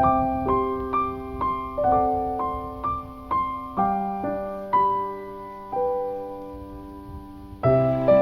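Background piano music: a slow melody of single notes, about two a second, each ringing and fading before the next, with a fuller chord coming in near the end.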